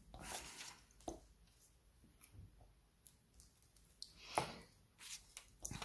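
Glue stick rubbed over a folded book page and the paper handled: a few faint, short swishes, the strongest about four and a half seconds in.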